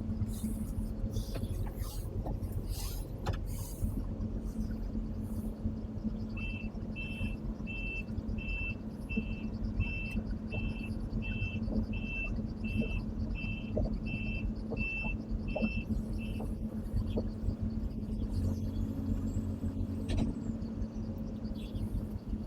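Case CX220 excavator's diesel engine running steadily while the machine is walked onto a lowboy trailer, with a travel alarm giving about fifteen even beeps, roughly one and a half a second, from about six seconds in to about sixteen seconds in.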